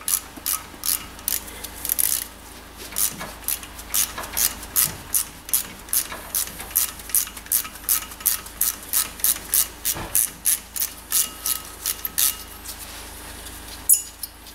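Ratchet clicking steadily, about three clicks a second, as the countersunk T30 Torx screw holding the brake disc to the hub is undone. A single knock near the end.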